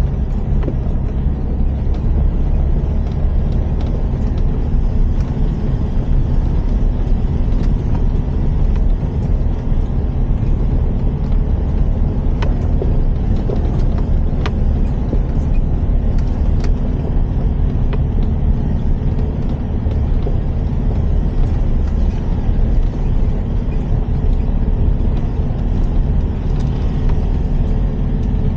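Mitsubishi L200 pickup driving on a rough dirt track, heard from inside the cab: a steady low engine and road rumble, with a few short knocks and rattles around the middle.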